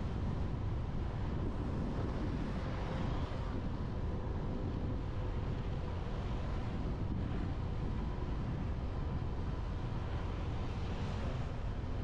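Riding noise from a moving motorbike: steady wind buffeting the camera microphone over the rumble of the engine and road. A faint hiss swells briefly a few seconds in and again near the end, like other traffic passing.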